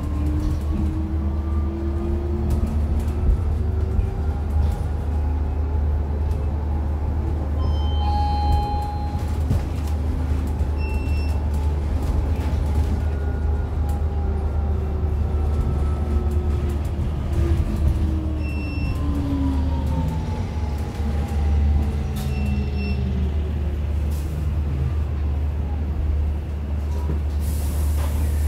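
Whine of a BYD K9 electric bus's drive motor, rising in pitch for about twelve seconds as the bus speeds up, then falling as it slows, over a steady low road rumble. A few short beeps sound along the way, and a brief hiss comes near the end.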